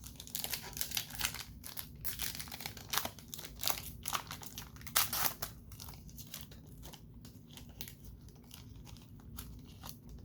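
Crinkling and tearing of a trading-card pack's plastic-foil wrapper being torn open and handled. It is busiest for about the first five seconds, then thins to faint occasional rustles.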